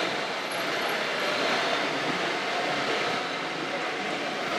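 RC model construction machines and trucks running: a steady mechanical whirring of small motors and gearboxes.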